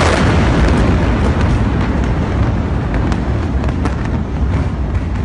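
Large explosion's aftermath: a loud, deep, sustained rumble with scattered sharp pops and crackles, slowly easing off.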